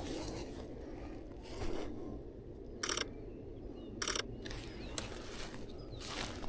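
Sony A1 camera shutter firing in two short high-speed bursts about a second apart, each a quick run of clicks.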